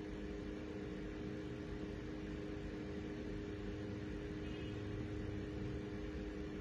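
Steady whirring hum of a wall-mounted split air conditioner running, with a faint steady low tone under it.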